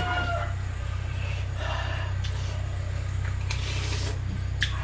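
A rooster's crow trails off at the very start. Then come soft breaths and small mouth noises over a steady low hum.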